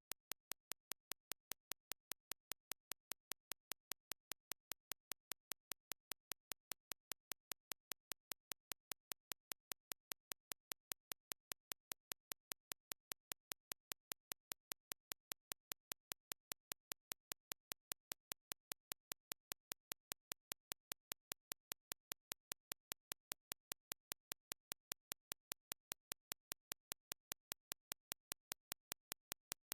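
A steady train of faint, sharp, evenly spaced clicks, about five a second, over near silence.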